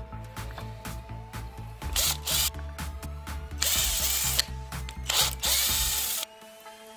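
Cordless drill-driver turning a screw in the wooden handle stub stuck in a hammer head's eye. It runs in several short bursts with clicking between them and stops about six seconds in.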